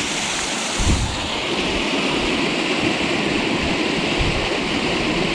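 Small waterfall's water rushing steadily, with a short low thump about a second in.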